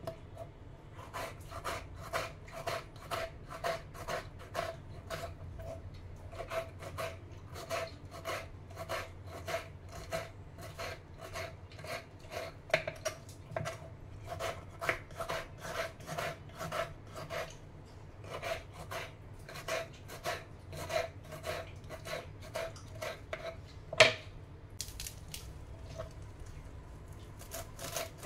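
Kitchen knife dicing a tomato on a wooden chopping board: a steady run of quick blade strikes on the wood, about two to three a second, with one sharper, louder knock about three-quarters of the way through.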